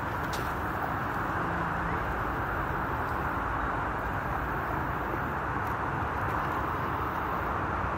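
Steady rush of road traffic, an even roar that holds at one level throughout.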